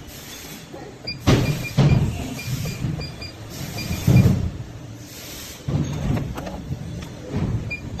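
WL-SF10T servo-motor hex crimping machine working, with several surges of low mechanical noise and thuds, the loudest about a second in and again about four seconds in. Short high electronic beeps repeat about three times a second over part of the stretch.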